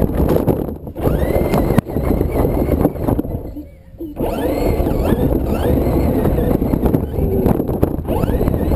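Traxxas Slash radio-controlled truck driving on grass: its motor and drivetrain whine up and down in pitch as it accelerates and slows, over a rumble and knocks from the chassis bouncing on the lawn. The whine drops away briefly a little past three seconds in, then picks up again.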